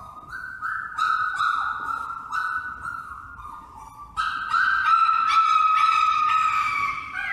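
A dog whining and howling in long, high notes that step up and down in pitch, growing louder about four seconds in.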